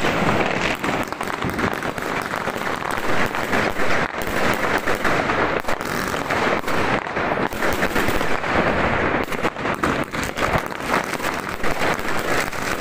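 Fireworks and firecrackers going off without pause: many sharp bangs and crackles overlapping one another over a constant rumble of more distant explosions.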